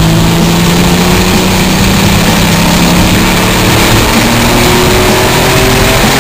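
Mitsubishi 3000GT VR-4's twin-turbo V6 heard loud from inside the cabin as the car accelerates, its pitch climbing slowly, with road and wind noise throughout.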